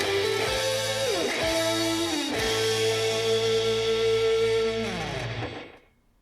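Recorded music played back through an Akkord 201 stereo amplifier and its speakers, picked up by a camera microphone: electric guitar holding long notes with bends. It ends about five and a half seconds in, dying away to near quiet.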